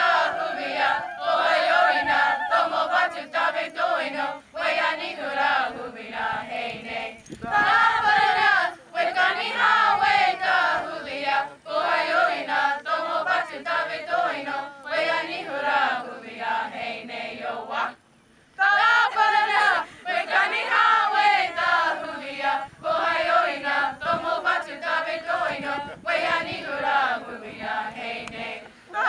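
Youth choir singing a Comanche hymn unaccompanied, in young, mostly female voices, with a short pause between phrases about two-thirds of the way through.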